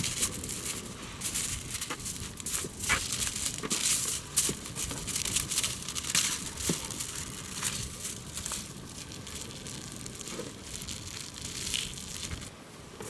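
Sheets of aluminium foil being folded and crinkled by hand, layered into a makeshift pan: an irregular crackling rustle with sharp clicks.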